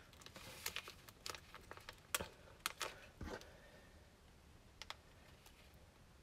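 Black cardstock being handled and pressed flat on a cutting mat by hand: a quick run of light clicks and paper rustles over the first three seconds or so, then quieter with a couple of faint ticks.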